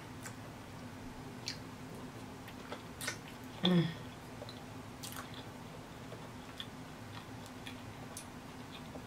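Close-up mouth sounds of someone chewing a sauce-coated hard-boiled egg, with small wet clicks and smacks. A short hummed 'mm' comes a little under four seconds in.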